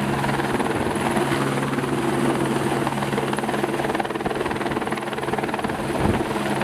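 Helicopter running steadily. Its low steady tones weaken about four seconds in.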